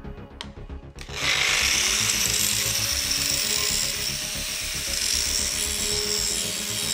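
Angle grinder switched on about a second in: its whine rises as the disc spins up, then it grinds steadily against the edge of a heavy metal tube.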